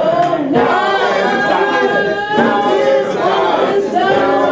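A woman singing solo with piano accompaniment, holding long, sliding notes.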